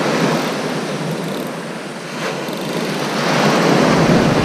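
Sea surf washing on the beach, a steady rush that swells louder about three seconds in as a wave comes in.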